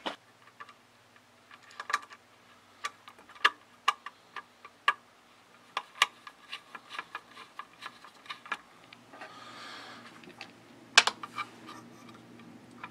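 A screwdriver and a small bolt clicking and tapping irregularly on a circuit board while a TRIAC is bolted down onto its mounting pad, with a short scraping spell about two thirds through.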